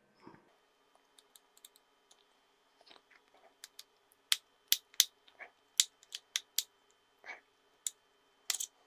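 Small T5 screwdriver and tiny screws clicking and ticking as the screws are undone from a Nokia Lumia 520 phone's chassis: irregular sharp clicks, thickest and loudest from about four to six seconds in.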